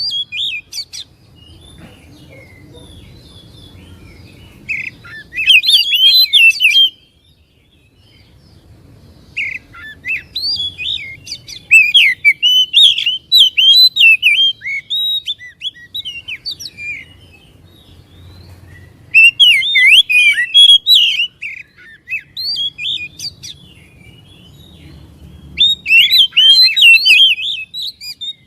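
Oriental magpie-robin singing in bouts of rapid, varied high chirps and whistles. There are five bouts of one to six seconds each, with short pauses between, and a faint low hum underneath.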